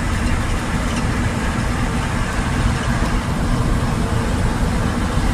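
Steady engine and road noise inside the cab of a truck driving on a highway, heaviest in the low end with a constant low hum.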